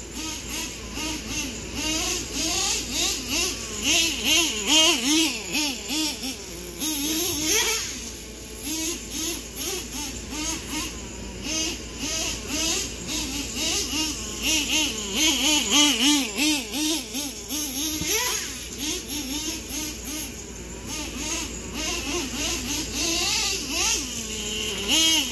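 Nitro engine of a Traxxas Slayer Pro RC truck running hard, its pitch rising and falling several times a second as the throttle is worked while the truck is driven.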